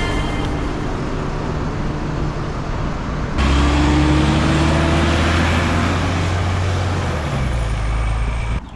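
A heavy road vehicle's engine runs with a steady low hum. About three seconds in it gets louder and its whine rises in pitch as it pulls away. The sound drops off suddenly near the end.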